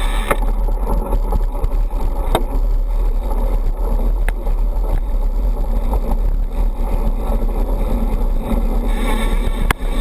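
Knobby mountain-bike tyres rolling over a gravel road: a steady crunching rumble with heavy wind buffeting on the bike-mounted action camera and a few sharp clicks.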